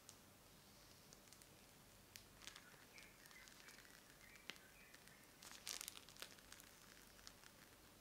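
Faint crinkling of a plastic piping bag squeezed as whipped cream is piped out, with scattered soft ticks and a denser rustle a little before three-quarters through.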